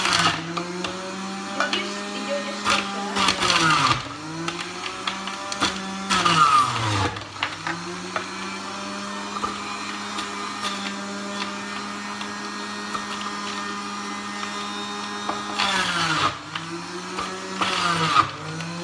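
Electric centrifugal juicer shredding carrots: the motor runs with a steady hum, and several times, as a carrot is pushed onto the spinning cutter, a loud grinding starts and the motor's pitch sags under the load, then climbs back. The deepest drop and loudest grinding come a little past the middle of the first half.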